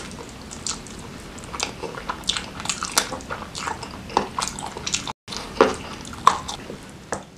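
Close-miked chewing and biting of grilled chicken dipped in sambal: irregular wet smacks and sharp mouth clicks. The audio cuts out for an instant about five seconds in.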